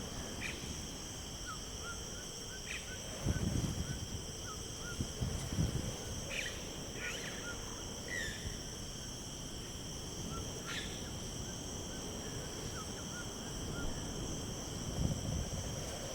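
Nature ambience: insects trilling steadily at a high pitch, with short, evenly repeated bird chirps and a few brief low rumbles.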